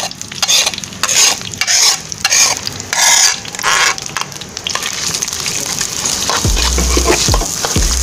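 Ground spice paste sizzling as it is scraped with a spatula into hot oil in a wok: repeated scraping strokes for the first few seconds, then a steady frying sizzle.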